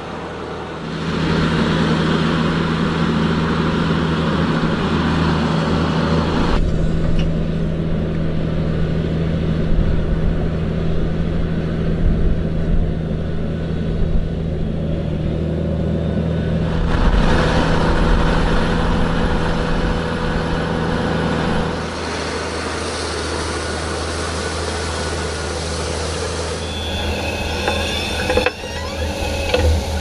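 Claas Xerion 3800 tractor's engine running steadily under load as it pulls a nine-furrow reversible plough through the soil, a low continuous drone. The sound changes abruptly a few times and turns quieter near the end.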